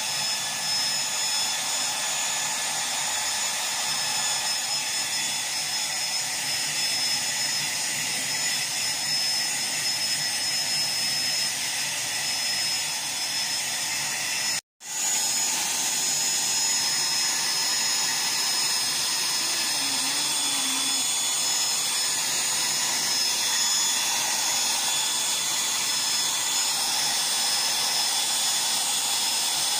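Handheld hair dryer running steadily, blowing hair dry: a constant airflow noise with a high motor whine. The sound cuts out completely for a split second about halfway through.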